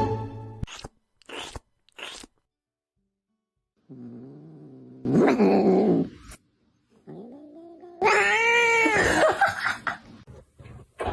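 A cat yowling in drawn-out calls: a low, long call about four seconds in, then a louder yowl that rises and falls about eight seconds in.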